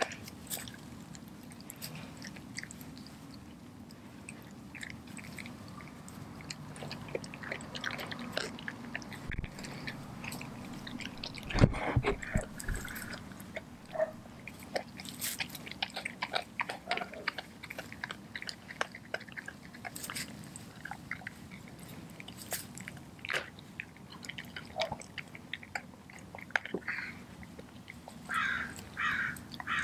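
A Doberman chewing and biting into a whole raw feathered chicken, with many short sharp crunches and clicks as it works the carcass. A loud low thump about twelve seconds in.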